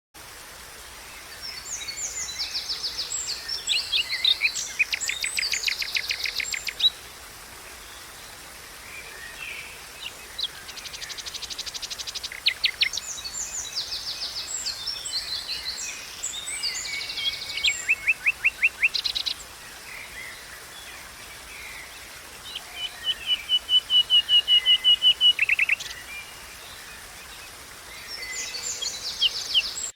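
Songbirds singing in phrases of a few seconds each, made of high chirps and rapid trills, over a faint steady hiss of running water.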